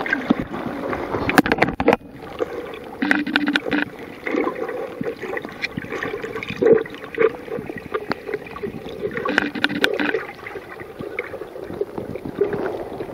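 Water heard through a Kodak Pixpro WPZ2 waterproof camera held underwater: muffled gurgling and sloshing with many scattered small clicks and knocks.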